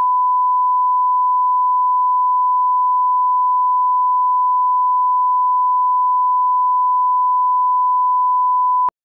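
Bars-and-tone 1 kHz line-up tone: a single pure, steady test tone at a constant level, the reference used to set audio levels at the head of a tape. It cuts off abruptly near the end.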